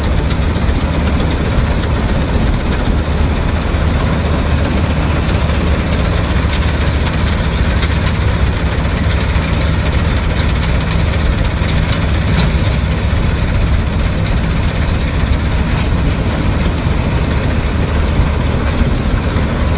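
Surindera 930 combine harvester's diesel engine running steadily with a deep, even drone and mechanical noise.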